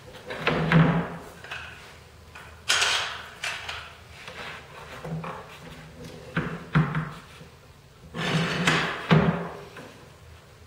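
A bar clamp being handled and set on a wooden fence board and MDF base: a series of separate knocks and clatters as the clamp jaws and bar hit the wood, with a cluster of louder knocks near the end as it is snugged down.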